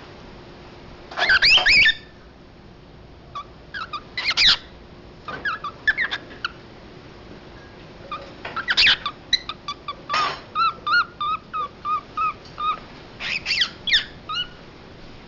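Pet cockatiel calling. About a second in there is a loud, harsh screech. Short chirps and whistles follow, then near the middle a quick run of repeated whistled notes, about three or four a second, and more chirps near the end.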